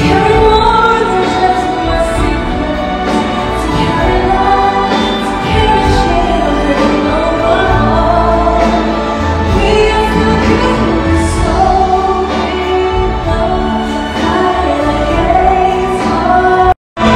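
A singer performing a slow song live with instrumental accompaniment. The sound cuts out completely for a moment near the end.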